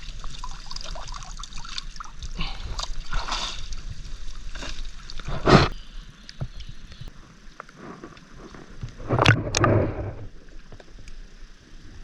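Water sloshing and trickling with irregular splashes, the loudest about halfway through and again near the end.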